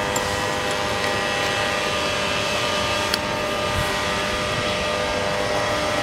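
Steady mechanical drone holding several constant tones, with a couple of faint clicks, one near the start and one about three seconds in.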